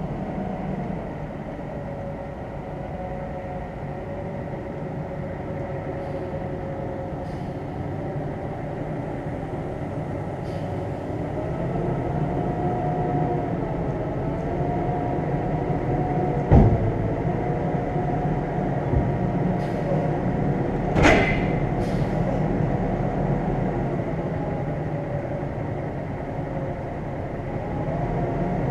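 Semi truck's diesel engine running at low speed, heard from inside the cab, its pitch rising and falling slightly as the truck pulls along. Two sharp knocks come past the middle, a few seconds apart.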